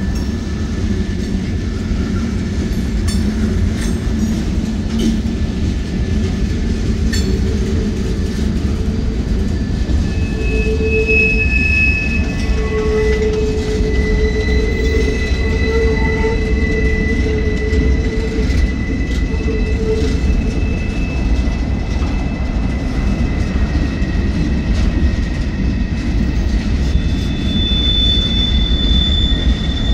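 Freight train cars rolling past: a steady low rumble of steel wheels on rail, with thin, high wheel squeals that come and go and a few sharp clicks in the first seconds. A higher squeal joins near the end.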